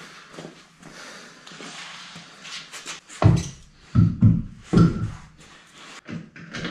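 Faint shuffling, then from about halfway through a run of dull thumps and knocks as a B5 Audi S4 wheel with a snow tire is handled and hung onto the bare front hub.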